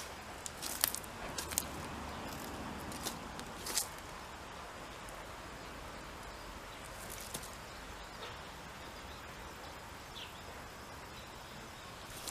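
Steady outdoor background noise with a few scattered crunches and clicks in the first four seconds and one more about seven seconds in.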